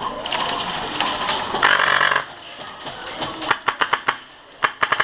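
Airsoft gun firing on full auto: a short burst about three and a half seconds in, then a longer rapid burst of about ten shots a second starting near the end. Before that there is a noisy stretch with scattered clicks.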